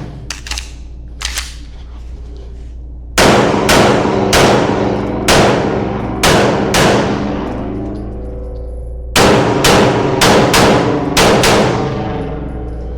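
Staccato P pistol fired in fast strings on a USPSA stage. After a few fainter cracks in the first second and a half come six loud shots about three seconds in, a pause of a couple of seconds, then six more shots near the end, each trailing off in a long ringing decay.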